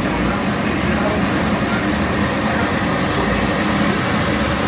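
Crucian carp frying in hot oil in an open pan, a steady sizzle, with a steady low hum underneath.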